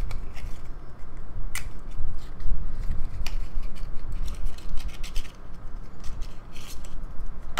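Small black cardboard sleeve handled and unfolded: rubbing and rustling of card, with scattered sharp clicks.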